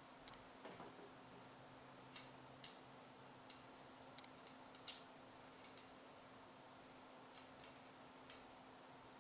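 Faint, irregular clicks and taps of small metal parts of a Ruger Mini-14 rifle being handled and fitted together by hand, about ten of them over several seconds, over a faint steady hum.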